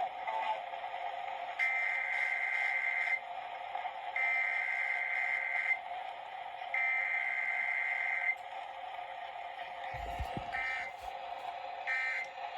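Emergency Alert System SAME data tones through a radio: three long, harsh buzzing digital bursts about a second apart, then three shorter bursts, over steady background noise. A brief low thump comes about ten seconds in.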